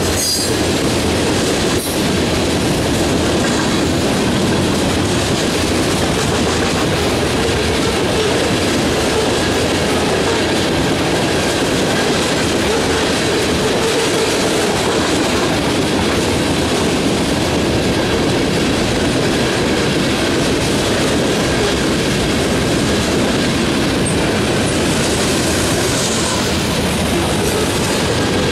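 Freight train of covered hoppers and tank cars rolling past: a steady, loud rumble of steel wheels on rail with the clickety-clack of wheels over rail joints.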